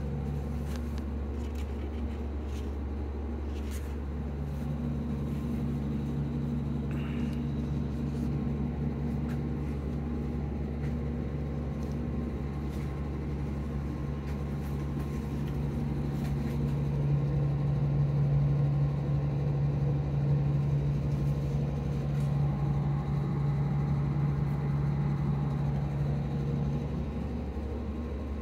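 Steady low mechanical hum with a droning tone that grows louder over the second half and eases off near the end, with a few faint clicks early on.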